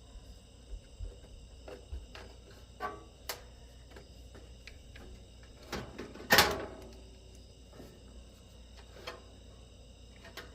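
Scattered clicks and knocks of parts being handled while the air-conditioner's outdoor unit is reassembled around its new fan motor, with one loud knock about six seconds in. Crickets chirp steadily behind.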